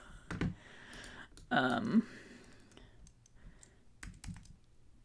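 A few scattered clicks from a computer keyboard and mouse. A short vocal sound about one and a half seconds in.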